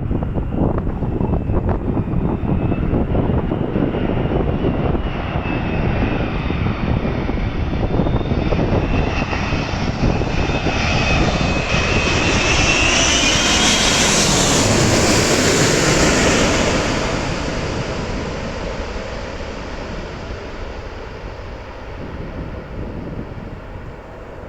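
Airbus A380 jet engines on landing approach, growing louder as the airliner passes over, with a high whine gliding down in pitch near the middle, then fading away.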